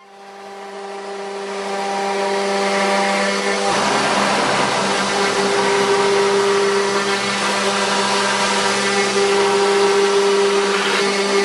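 CNC wood router's spindle running with a steady whine that builds over the first couple of seconds; about four seconds in, a rougher cutting noise joins as the bit works into the wood.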